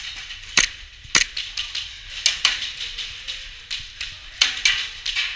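Airsoft guns firing: sharp cracking shots, a couple of single shots early, then irregular short strings of shots, laying down suppressing fire to keep an opponent pinned.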